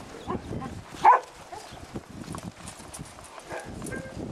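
A group of shelter dogs milling about, with a single short bark about a second in, scattered small movement sounds and a brief high whine near the end.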